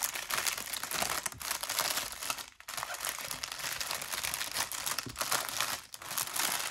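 Clear plastic bag crinkling as hands work a strip of plastic storage containers back into it, with a couple of short pauses.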